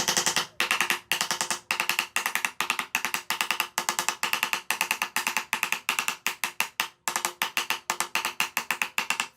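Rapid light strikes of a hammer or mallet on wood, several a second in short bursts with brief pauses between them, carrying a faint ringing tone.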